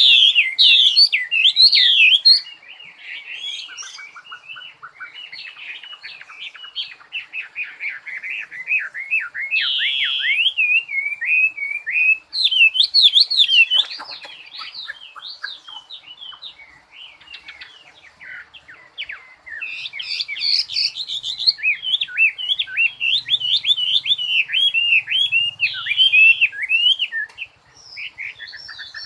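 A songbird singing a long, varied run of rapid high chirps and trills, with louder phrases coming every few seconds.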